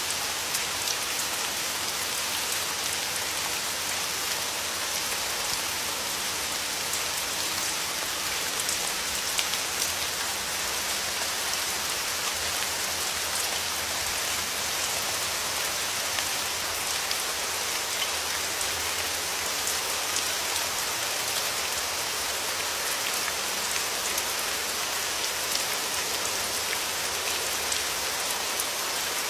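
Steady rain falling, with a dense spray of small drop impacts.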